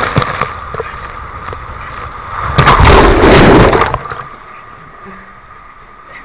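Water rushing and splashing around a rider sliding down an enclosed waterslide tube. A loud surge of splashing about two and a half seconds in lasts about a second, then the rushing drops to a quieter wash.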